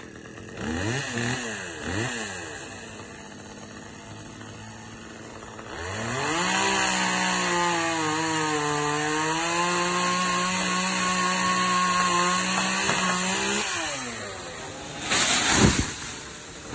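Husqvarna T435 two-stroke top-handle chainsaw blipped twice, idling, then held at full throttle for about eight seconds, its pitch sagging under load as it cuts into the coconut palm trunk, before dropping back to idle. Near the end comes a short, loud burst of noise.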